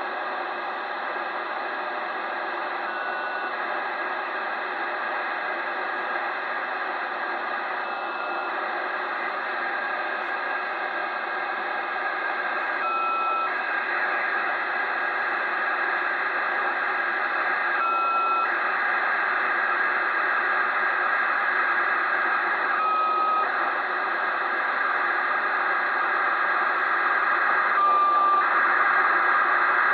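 Kenwood 2 m all-mode transceiver in USB receiving the FUNcube satellite's telemetry downlink near 145.935 MHz: steady radio hiss with the data signal in it. A brief burst comes about every five seconds, its pitch a little lower each time, and the whole grows slowly louder.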